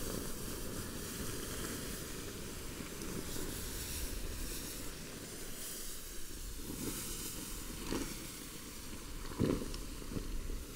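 Water poured from a bucket onto hot campfire coals, hissing and sizzling steadily as it turns to steam while the fire is put out. A few dull bumps near the end.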